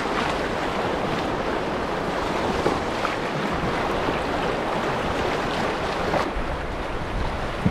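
Fast, high river water rushing and breaking in waves around an open canoe running rough water: a steady, dense wash, with wind on the microphone.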